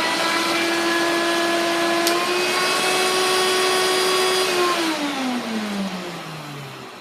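Hoover vacuum cleaner motor running steadily; about two seconds in there is a click and the motor's pitch steps up a little, a change of its two speeds. About four and a half seconds in it is switched off and winds down with a falling whine.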